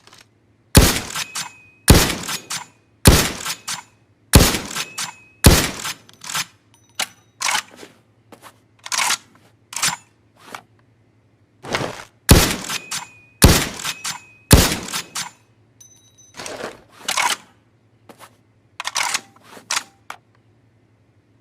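Winchester Model 70 bolt-action rifle sound effect: a long run of sharp metallic clacks and knocks, about one a second, some with a brief high ringing. The loudest strikes come in two groups, with softer clicks between and near the end.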